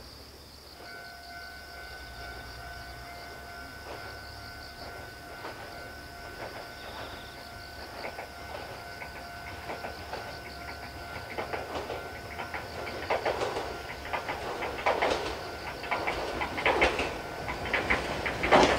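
Electric train approaching on jointed track, its wheels clicking over the rail joints, growing louder through the final seconds as it nears. A faint steady high tone sounds through the first part, fading out about two-thirds of the way in.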